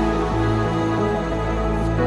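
Background music with long held notes over a steady bass.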